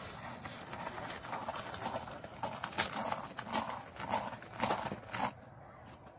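Throwing a large clay pot on a potter's wheel: a run of uneven clicks and knocks over a rubbing noise as hands and a needle tool work the wet clay, cutting off suddenly about five seconds in.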